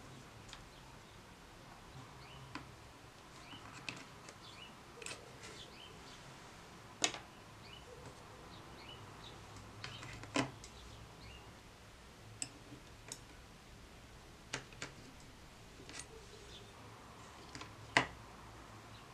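Sparse sharp clicks and light taps of watercolour pans being lifted out of and set back into a Kuretake Gansai Tambi tin, with three louder clicks spread through.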